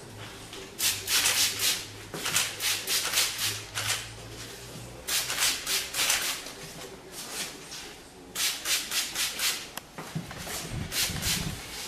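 Vinyl shampoo cape rustling and crinkling as it is handled, in quick repeated bursts that come in several clusters.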